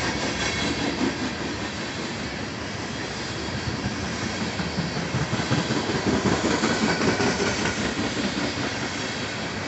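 Freight train of tank cars rolling past close by: a steady rumble and clatter of steel wheels on the rails, louder with quick uneven knocks for a couple of seconds past the middle.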